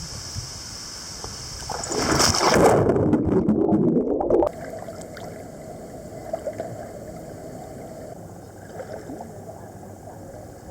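Swimming-pool water splashing: a loud rush of water for about two and a half seconds that cuts off suddenly, then a quieter steady lapping.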